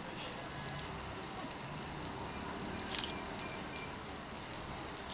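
City transit bus running as it drives into the terminal, a steady engine and road noise, with a sharp click about three seconds in.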